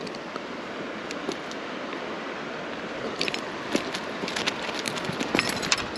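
Steady rush of a small creek, with a run of small clicks and rattles in the second half from pliers and a landing net being handled while a trout is unhooked.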